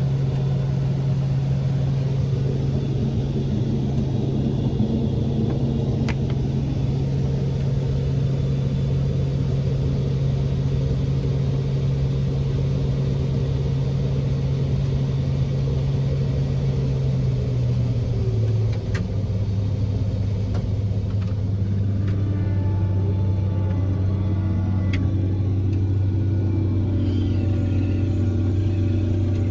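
Large farm machine's engine running steadily under working load, its pitch dropping a little about 18 seconds in.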